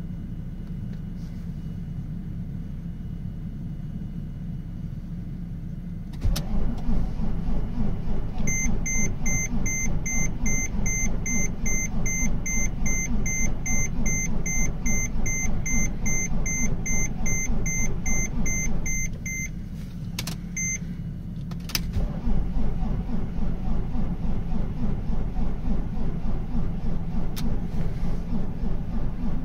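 Mercedes-Benz E320 CDI diesel being cranked by its starter at −26 °C without starting: a low steady hum, then a click about six seconds in and the engine turns over in rhythmic pulses. A dashboard warning chime beeps about twice a second during the cranking; the cranking stops briefly with a couple of clicks around twenty seconds in, then starts again, still not catching.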